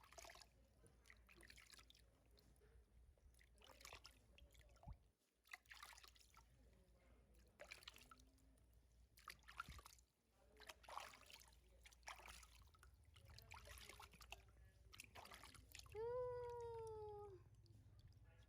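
Faint rustling and handling noises, then near the end a baby monkey gives one drawn-out whining call, about a second long, sliding slightly down in pitch, and begins another just at the end.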